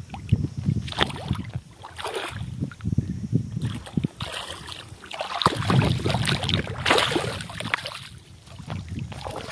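Hooked fish splashing and thrashing in shallow water as it is pulled in on a fishing line, in uneven bursts that are busiest from about five to seven seconds in.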